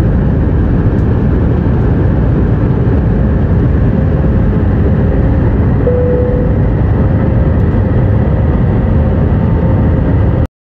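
Jet airliner's turbofan engines at takeoff thrust, heard from inside the cabin as a loud, steady, deep rush with a faint steady tone running through it. The sound cuts out abruptly near the end.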